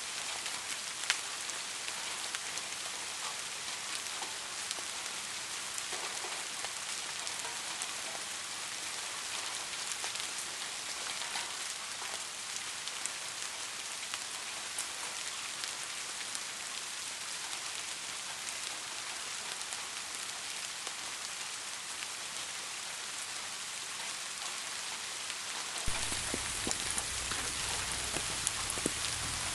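Steady rain falling, an even hiss with scattered drop ticks. About 26 seconds in it changes abruptly to a louder, fuller rain with a deeper rumble underneath.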